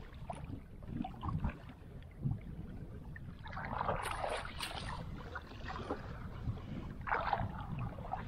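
Water lapping and slapping against the hull of a small wooden boat, with wind on the microphone; louder splashing swells up about four seconds in and again near the end.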